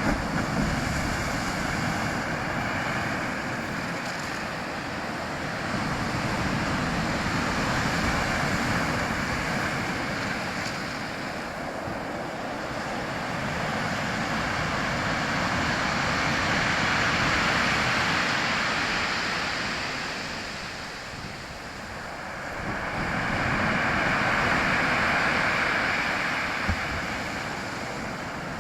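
Strong sea waves breaking on the shore: a continuous rush of surf that swells and eases, building to a peak roughly every eight seconds.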